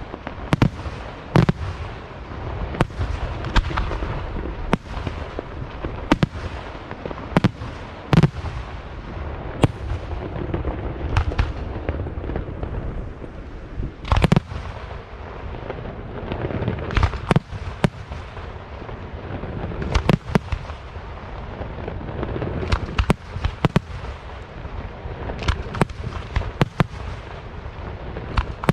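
Aerial fireworks display: a steady run of sharp shell bursts and bangs, irregularly spaced and sometimes a few a second, over continuous crackling and low rumbling from the sky.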